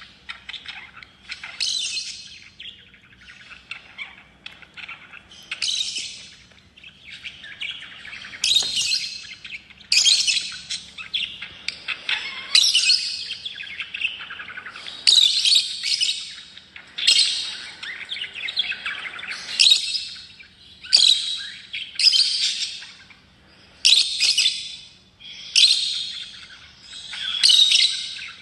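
Lovebirds chattering continuously, with loud, high-pitched calls repeating every second or two. The calls come closer together in the second half.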